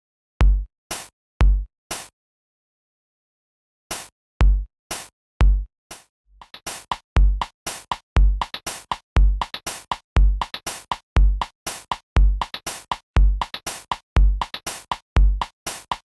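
Electronic drum-machine beat: a sparse pattern of deep kicks and sharp hits, a pause of about two seconds, then the beat comes back about four seconds in. From about six seconds in it fills out with fast hi-hat ticks and cuts off sharply at the end.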